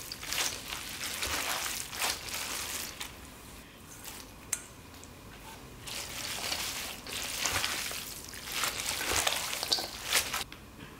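Wet squelching of thin noodles coated in spicy red chili sauce, tossed and squeezed by a gloved hand in a stainless steel bowl. It comes in repeated bursts, with a quieter stretch in the middle.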